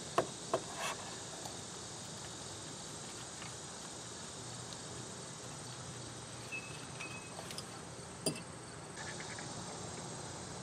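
Faint outdoor background with a steady high insect drone, broken by a few light clicks in the first second and one more about eight seconds in as small parts are handled in the engine bay.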